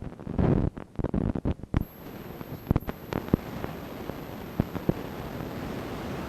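Loud bumps and rubbing right on the microphone for about two seconds, then a steady hiss with a few small clicks.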